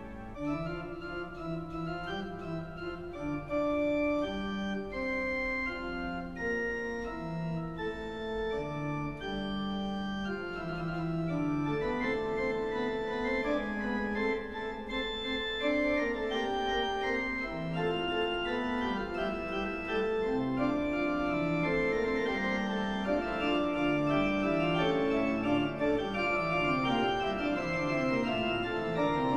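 Background organ music: held chords under a melody of notes changing about every second, with quicker runs of low notes near the end.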